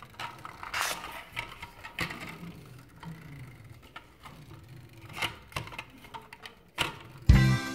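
Faint clicks and rattles of plastic toys being handled, with a toy police car's wheels rolling on the tabletop. Near the end, loud jingly music starts.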